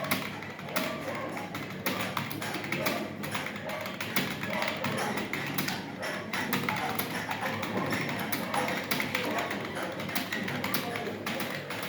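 Computer keyboard being typed on steadily, a dense stream of irregular key clicks, several a second.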